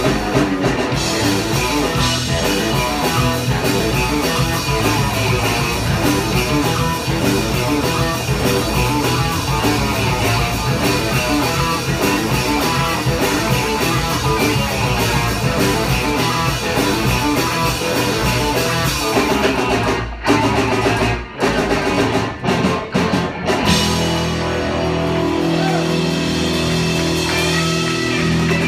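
Live rock band with electric guitar and drum kit playing an instrumental passage, then breaking into a few short stop-time hits with brief gaps, and ending on a long held chord.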